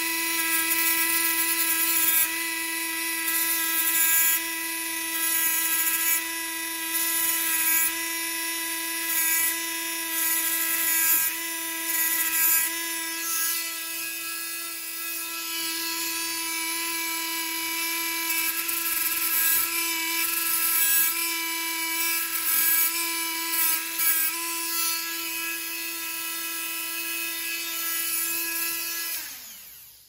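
Rotary tool with a cutoff wheel whining steadily at high speed, with repeated bursts of grinding as the wheel is touched to the steel of a Leatherman Wave to take material off an edge. Near the end the motor winds down in pitch and stops.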